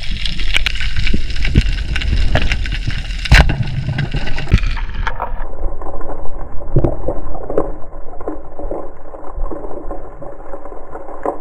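Water sloshing and gurgling around a diver's action camera, with a sharp knock about three seconds in. About five seconds in the sound suddenly turns muffled and dull, with soft knocks and bubbling.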